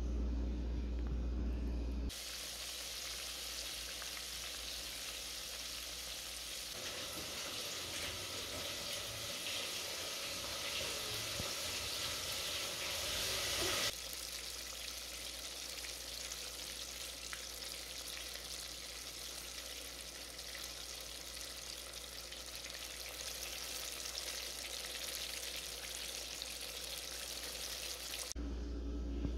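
Pieces of fish deep-frying in hot oil: a dense, steady sizzle that starts suddenly about two seconds in and stops shortly before the end, its texture changing abruptly about halfway through.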